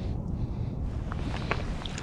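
Wind buffeting the microphone as a steady low rumble, with a few light clicks and taps from about a second in as fishing tackle is handled.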